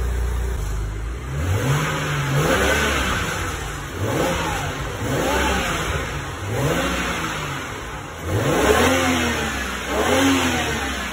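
BMW N54 twin-turbo 3.0-litre inline-six, fitted with aftermarket dual cone intake filters, idling and then blipped repeatedly, about six or seven rises and falls in revs roughly every second and a half. The engine is already warm, not a cold start.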